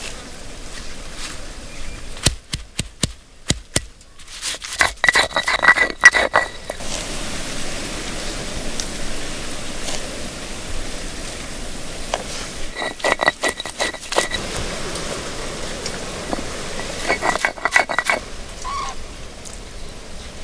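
A metal utensil scraping and clinking against a metal cooking pan in three bursts, with a ringing metallic tone. A steady hiss runs between the bursts.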